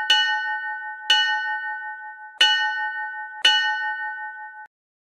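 A bell struck four times, about once a second, each strike ringing on into the next; the ringing cuts off suddenly near the end.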